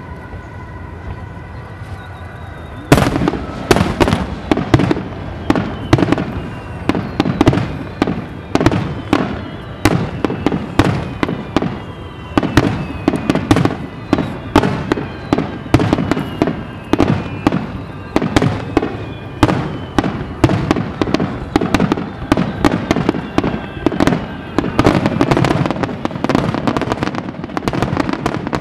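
Fireworks display: after a quieter opening with a few steady held tones, a barrage of shells bursting begins about three seconds in, several sharp cracks and booms a second, keeping up without a break.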